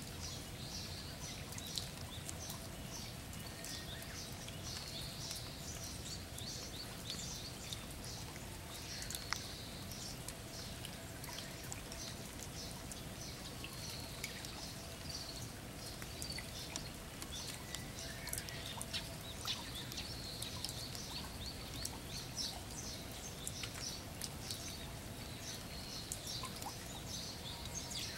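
Light rain falling into a shallow flooded pool, with many small drop ticks on the water, while birds chirp steadily in the background.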